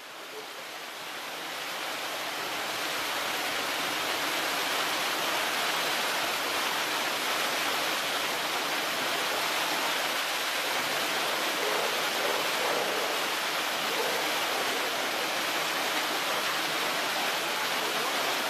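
Steady rush of flowing water, fading in over the first couple of seconds and then holding even.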